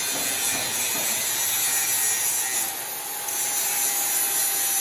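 Steady rasping noise of a shop tool at work, dipping briefly about three seconds in.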